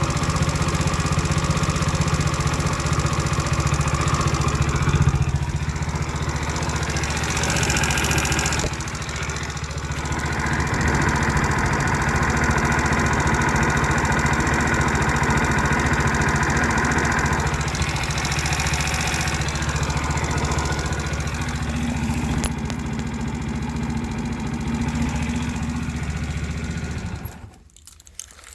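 139QMB 50cc four-stroke single-cylinder scooter engine running steadily with a knock whose cause the owner cannot find, although the valves are adjusted and the cam chain is new. It cuts off near the end.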